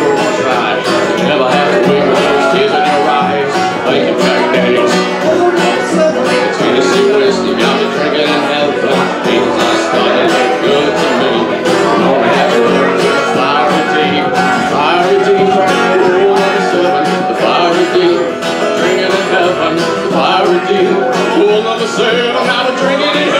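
Acoustic string band playing live in a bluegrass-folk style, with strummed and picked acoustic guitar and upright bass.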